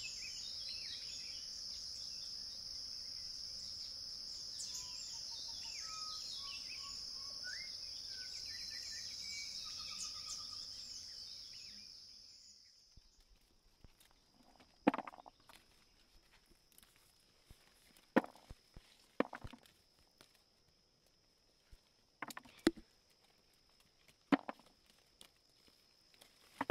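A steady high-pitched drone of insects with various birds chirping and trilling over it, which fades out after about twelve seconds. Then comes a quieter stretch with a handful of scattered sharp knocks and clatters.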